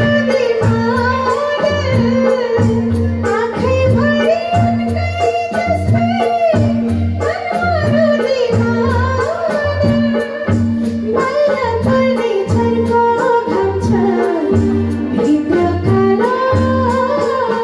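A woman singing a Nepali song live into a microphone, her voice wavering and ornamented, over band accompaniment with a steady low beat.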